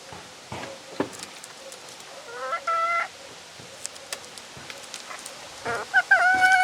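Chickens calling: two loud, drawn-out calls with a held pitch, one about two and a half seconds in and one near the end, among scattered soft clicks.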